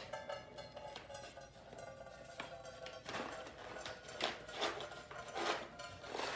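Plastic food packet handled and torn open, giving several crackles about halfway through, over a faint steady tone.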